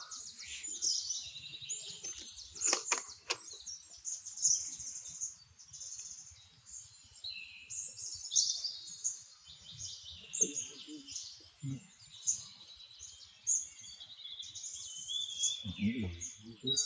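Birds chirping and calling continuously, many short high chirps and trills overlapping, with a few sharp clicks about three seconds in.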